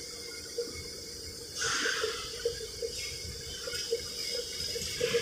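Metal shop machinery running with a steady hiss, with a brief louder rush of hiss about one and a half seconds in and faint light ticks a few times a second.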